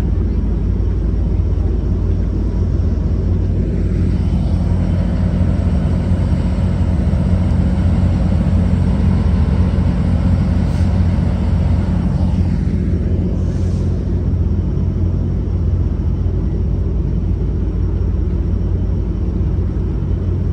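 Amtrak F59PHI diesel locomotive idling at a station stop: a loud, steady low rumble with a hum, swelling slightly midway.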